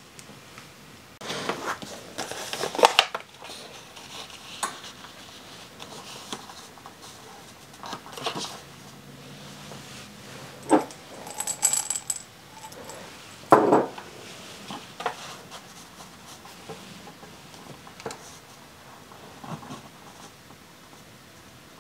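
Scattered light taps, clinks and rustles of small craft materials (cards and envelopes) being handled on a work surface, irregular and a few seconds apart, with the loudest clusters about two to three seconds in and again just past the middle.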